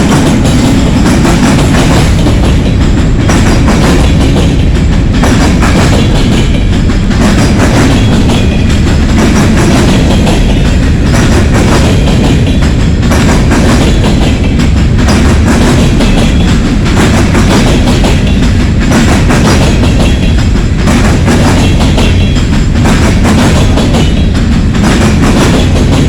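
Freight train hauled by GE diesel locomotives passing close by: a loud, steady heavy rumble with a regular clatter of wheels over rail joints.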